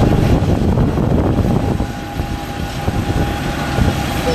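Airport apron noise from a parked jet airliner and the ground equipment around it: a steady whine over an uneven low rumble.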